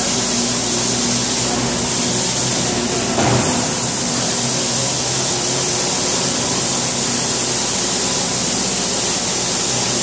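Skid steer with a broom attachment running: a steady engine drone under a constant hiss, with a brief louder bump about three seconds in.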